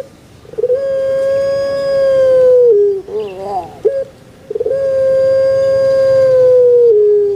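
Puter pelung dove (Barbary dove, Streptopelia risoria) cooing: twice a short wavering chuckle followed by one long held coo of about two seconds that ends with a slight drop in pitch.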